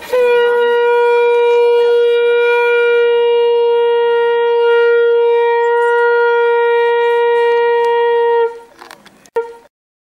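A conch shell (shankha) blown in one long steady note lasting about eight and a half seconds, then stopping, followed by a brief short blast a second later.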